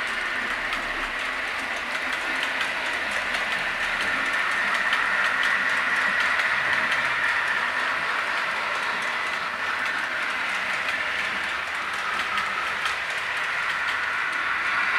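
Hornby OO gauge model train running steadily past: the coaches' wheels rolling on the track with scattered light clicks, along with the locomotive's sound decoder playing recorded 'Lord Nelson' steam sound through its small onboard speaker.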